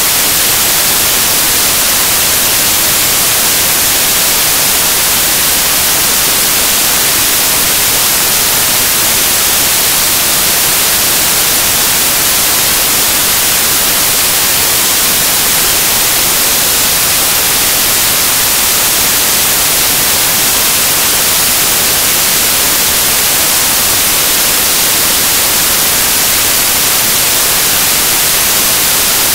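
Loud, steady static hiss, like white noise, heaviest in the treble. It does not change, and no voices or other sounds come through it.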